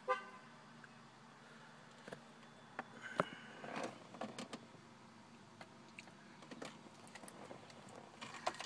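Faint, scattered clicks and light taps over a quiet background, with a short pitched sound right at the start.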